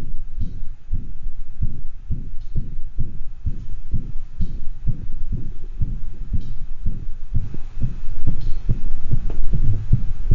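Recorded heart sounds of a dog with mitral regurgitation: repeated low-pitched beats with an even, band-shaped holosystolic regurgitant murmur, in the rhythm of sinus arrhythmia.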